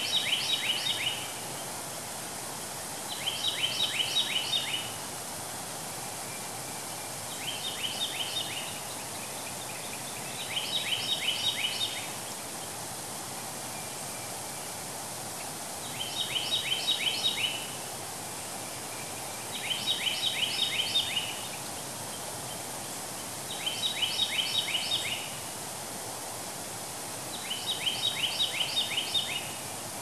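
Steady rushing of a stream spilling over small travertine cascades, with eight short bursts of rapid chirping every three to four seconds, each a quick run of about ten sharp notes.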